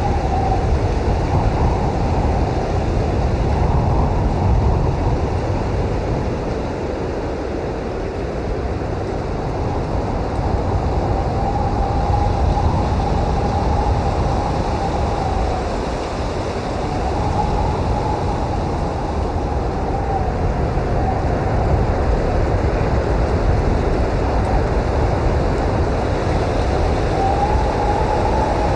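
Blizzard wind: a steady low roar that swells and eases, with a howling whistle that rises and falls in pitch several times.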